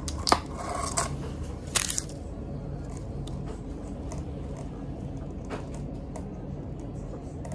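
A plastic straw pushed and stirred through ice in a clear plastic cup of iced drink: a sharp click, then scraping and rattling of ice in the first two seconds. After that only a steady low background hum.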